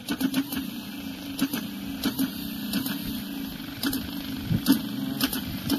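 A steady low mechanical hum with irregular sharp clicks and knocks scattered through it.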